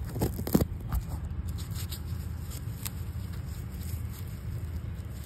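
Dried loofah sponge handled close to the microphone as its seed-end cap is pulled off: scratchy fibrous crackling with a few sharp clicks in the first second and lighter ticks after, over a steady low rumble.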